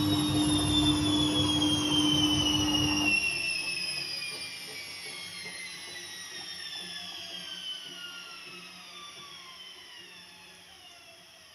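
Tesla front-loading washing machine's drum spinning down at the end of its final spin. A steady hum and low rumble cut off about three seconds in, then a falling whine fades away as the drum coasts toward a stop.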